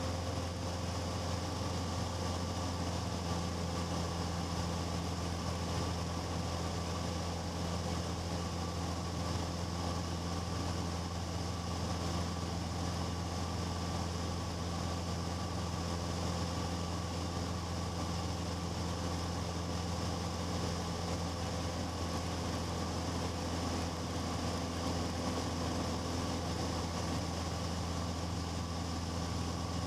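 Cessna 150's Continental O-200 four-cylinder engine and propeller running with a steady drone, holding the same pitch and level throughout.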